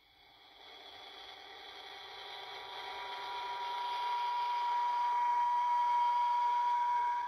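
Hallmark Star Trek transporter ornament's small speaker playing the transporter beam sound effect: a shimmering whine with a steady high tone that builds louder and cuts off at the end.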